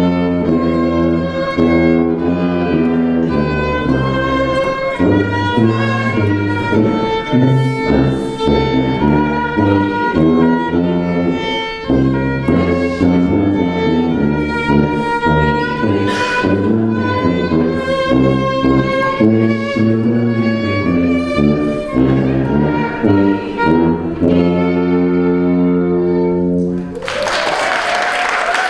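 A violin and a sousaphone playing a duet, the violin carrying the melody over a stepping bass line on the sousaphone. The music ends about a second before the end, and applause follows.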